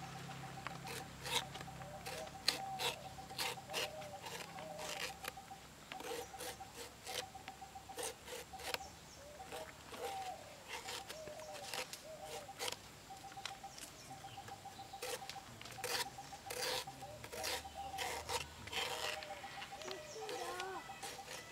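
Banana flower being shaved and chopped against a fixed upright blade held down by the foot: irregular sharp cutting clicks. Birds call in the background, one repeating a rapid run of even notes.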